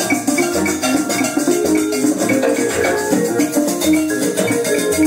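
A stereo demonstration record playing through a Magnavox portable record player's speakers: instrumental music with a stepping melody over a regular bass pulse and a shaker-like percussion beat.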